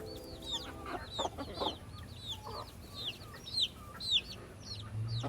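Baby chicks peeping: a steady run of short, high chirps that slide downward, a few each second, with chickens clucking lower among them.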